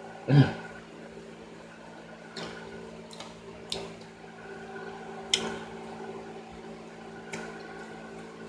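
A person eating between remarks: a short mouth sound at the start, then a few scattered small clicks and smacks of chewing and cutlery, over a steady electrical hum.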